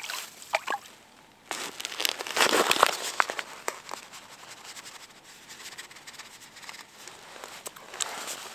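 A plastic bag crinkling and rustling as groundbait is handled, with small clicks. It is loudest for a second or two after about one and a half seconds in, then goes on more quietly.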